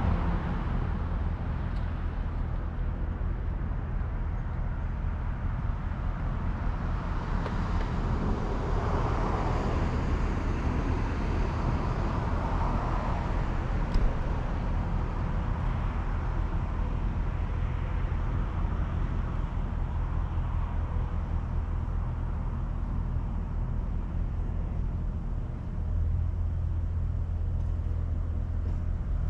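Tow vehicle's engine running slowly with a steady low hum while reversing a boat trailer down a launch ramp. There is a brief rushing swell partway through, a single click about halfway, and the engine note strengthens near the end.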